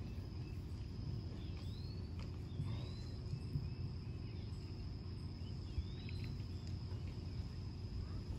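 Quiet background ambience: a steady low hum and one steady high-pitched tone, with a few faint short chirps that rise and fall.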